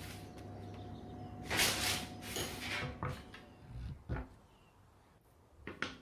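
Kitchen handling sounds over a wooden board: a rustling scrape about a second and a half in, then a few separate light knocks, two of them close together near the end. A low steady hum runs underneath and fades out about halfway.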